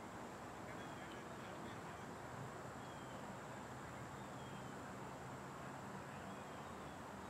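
Steady open-air background noise, with faint short falling chirps of a bird repeating about once a second.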